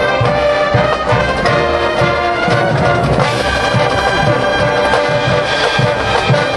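Marching band playing: brass section (trumpets and trombones) sounding sustained chords over steady drum beats.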